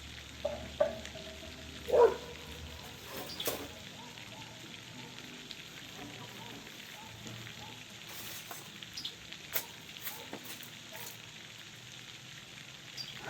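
Steady hissing background noise, with a low hum that stops about three seconds in, a loud short call about two seconds in, and a scattering of faint clicks and chirps.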